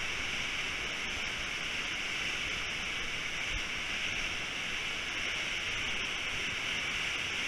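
Steady rush of whitewater pouring over a waterfall into its churning pool, an even hiss with no breaks.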